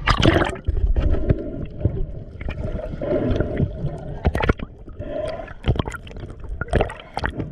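Water gurgling and sloshing around a GoPro worn on the head while snorkeling, with irregular sharp knocks and splashes.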